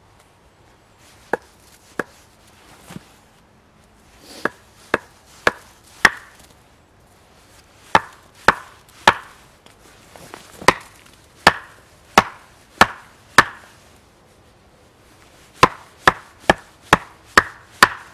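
Small axe chopping into the top of an upright wooden stake: about twenty sharp blows in short runs of three to six, roughly two a second, with brief pauses between runs.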